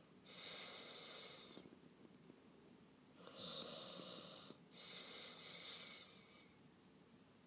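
Faint breathing close to the microphone: three breaths, each about a second and a half long.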